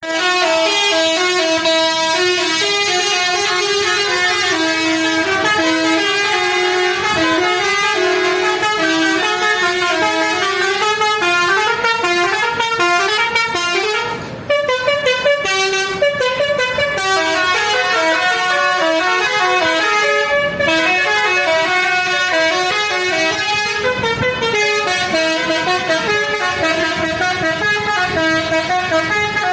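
Tour bus's telolet and basuri melodic air horns playing a tune: loud, pitched horn notes stepping from one to the next without letup, with a brief break about halfway through.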